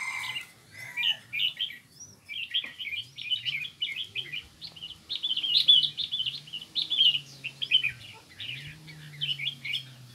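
A group of small caged songbirds chirping and twittering in quick, overlapping bursts, busiest in the middle.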